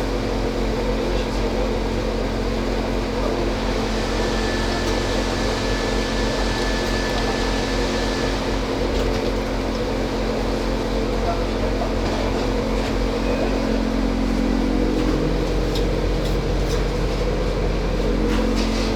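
Electric machinery running with a steady hum of several constant tones over even noise.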